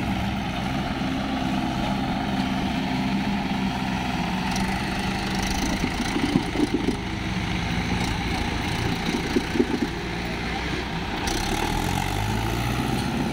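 Swaraj 843 XM tractor's diesel engine running steadily under load, hauling a loaded trailer through deep mud, its note rising slightly near the end. A few short knocks come about six and nine seconds in.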